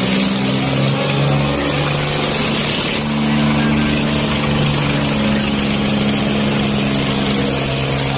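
Diesel tractor engine running steadily near idle, its note stepping up slightly about three seconds in.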